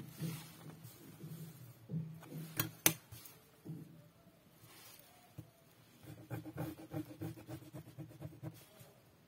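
A plastic ruler and ballpoint pen are handled on a sheet of paper: two sharp taps about three seconds in as the ruler is set down. In the second half comes a quick run of pen scratching as a line is drawn along the ruler.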